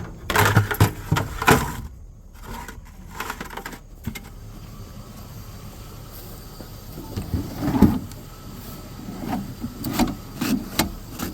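Knocks and clatters, a group near the start and another toward the end, over a low steady rumble.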